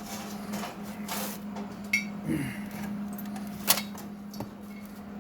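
A few scattered clicks and knocks of objects being handled, over a steady low hum.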